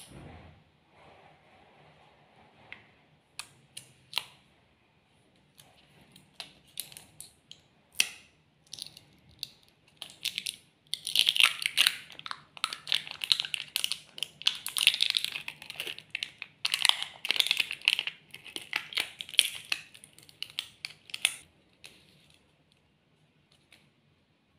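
The printed seal of a plastic snack cup being peeled off, crinkling and tearing in a dense run of about ten seconds in the middle. Before it come scattered clicks and taps as the plastic cup is handled.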